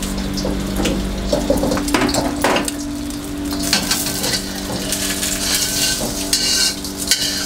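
An egg sizzling in hot oil in a metal wok, with a metal spatula clinking and scraping against the wok a few times. The sizzle grows louder over the second half, over a steady low hum.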